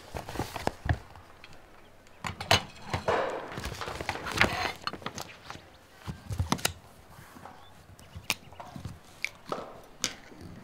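Irregular clicks, taps and knocks of small objects being handled on a tabletop, with a denser stretch of rustling and taps about three to four and a half seconds in.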